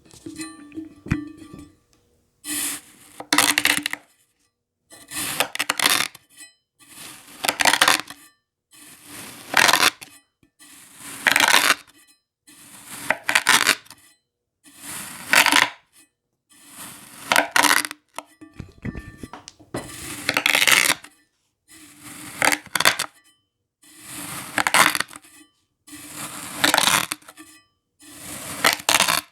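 Crunchy kinetic sand being crunched, worked in repeated strokes of about a second each, one roughly every two seconds, with silence between.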